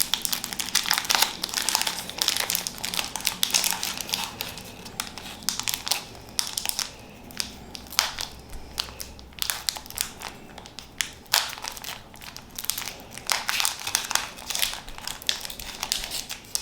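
Foil wrapper of a Pokémon card booster pack crinkling and crackling irregularly as it is squeezed and picked at while someone struggles to tear it open.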